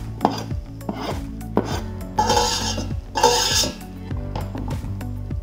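Kitchen knife scraping minced ginger off a plastic cutting board into a stainless steel pot: short scrapes and light clicks of blade and board against the pot, with two longer rasping scrapes about two and three seconds in.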